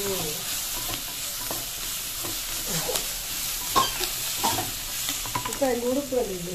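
Chopped onions, tomato and green chillies sizzling in oil in a black non-stick kadai while a wooden spatula stirs and scrapes them, with scattered knocks of the spatula against the pan. A short wavering pitched call is heard near the end.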